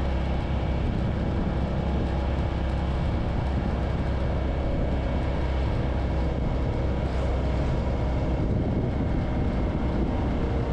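Suzuki V-Strom 650's V-twin motorcycle riding along at a steady speed: wind rushing over the microphone, with the engine running beneath it.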